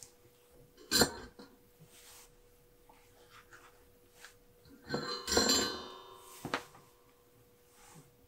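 Clicks and clinks of small metal tools and parts being handled and set down on a tabletop during soldering work: a sharp one about a second in and a quick cluster around five to six seconds in. A faint steady high hum runs underneath.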